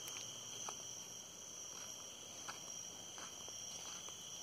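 Steady, high-pitched chorus of insects, with a few faint short ticks scattered through it.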